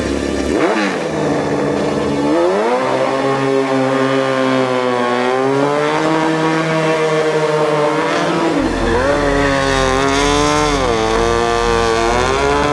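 Honda CBR Fireblade inline-four motorcycle engine powering a go-kart, revving hard as the kart drives: the engine note climbs, holds high and then drops and climbs again twice in the last few seconds.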